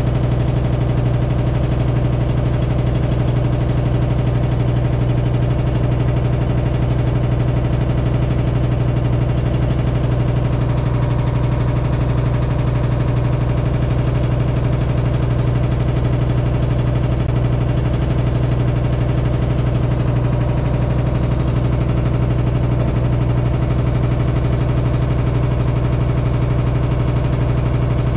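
Hitachi SF-150TCV washing machine in its spin cycle, running with a loud, steady low hum and vibration. The owner finds the noise abnormal and suspects the spin shaft is off-centre or not locked tight, letting the tub wobble.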